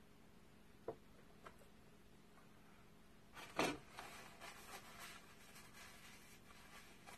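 Quiet room with faint handling noise: a couple of light clicks, then about three and a half seconds in a short, louder rustle followed by a few seconds of soft rubbing as hands move on and around the glued picture frames.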